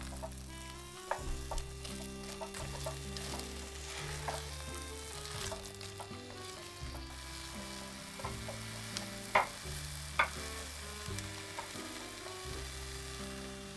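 Food sizzling in a pan while it is stirred, with scattered clicks and two sharper knocks about nine and ten seconds in. Background music plays underneath.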